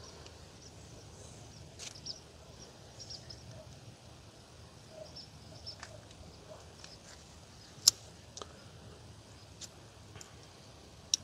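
Faint handling sounds of a cable being threaded through a small plastic dropper-post remote lever: scattered light ticks and clicks, with two sharper clicks about eight seconds in and near the end.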